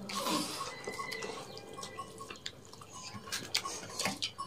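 Scattered wet clicks and smacks of people eating rice and egg curry with their hands, mixing the rice on their plates and chewing.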